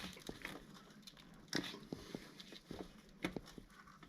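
Faint rubbing, creaking and clicking of hands and fingers working a rubber coolant hose loose from its fitting on a Honda CBR900RR engine, with two sharper clicks about one and a half and three seconds in as the hose gives.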